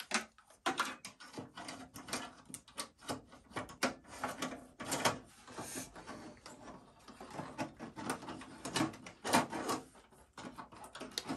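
Irregular clicks, taps and rustling as a 2.5-inch SATA SSD and its data and power cables are handled and set in place inside an open desktop PC case, with no screws used.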